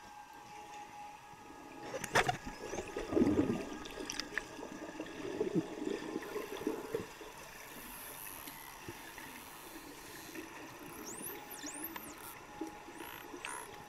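Water in a swimming pool heard through an underwater camera: a sharp click about two seconds in, then a few seconds of bubbly gurgling, and a run of short high chirps near the end.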